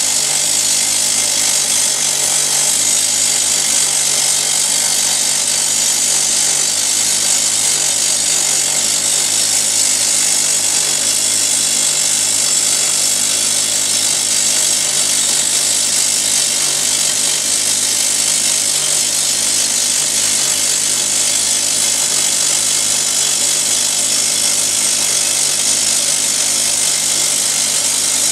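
Drillcom RD32 rock drill percussion drilling a 70 mm hole into hard granite with a button bit. The hammering is loud and steady, with no let-up.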